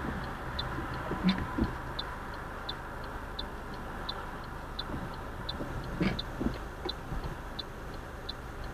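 A car's turn-signal indicator ticking inside the cabin in an even tick-tock, about one and a half flashes a second, over the low hum of the engine and road. A few soft thumps come about a second in and again around six seconds.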